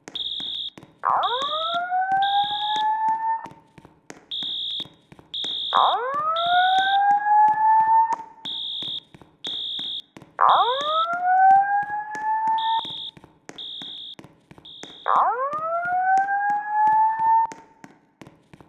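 School fire alarm evacuation signal: a high-pitched electronic beep in groups of three, the temporal-three evacuation pattern, repeating about every four seconds. Over it, a whoop tone from the voice-evacuation speakers rises over about two seconds, four times.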